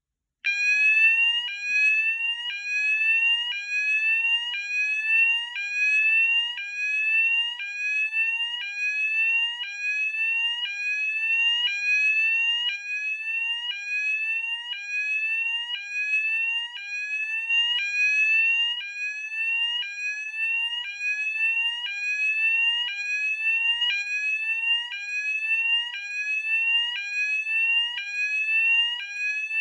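Merlin Gerin SR AGS 300 (Fulleon Askari) class A fire alarm sounder sounding on its tone 3, high setting: a loud rising sweep that snaps back and repeats about once a second. It switches on abruptly about half a second in.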